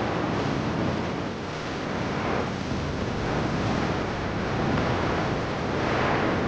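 Steady rush of wind over the microphone during a tandem skydive freefall.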